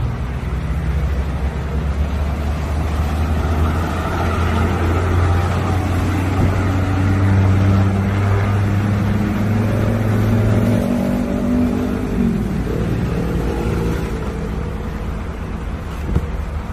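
BMW 520d's 2.0-litre twin-turbo diesel engine idling with a steady low hum, which drops away about two-thirds of the way through.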